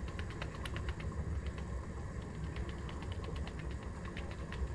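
A spoon digging into a paper packet of ground cinnamon, with small crinkling and scraping ticks from the paper, over a steady low rumble.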